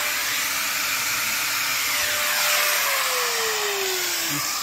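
An electric power tool's motor running with a loud, steady rushing hiss. Under it a hum holds one pitch, then slides steadily lower from about three seconds in.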